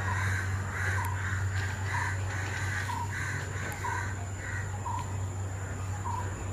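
A crow cawing over and over, about once a second, over the steady low drone of the converted Ashok Leyland rail bus's diesel engine.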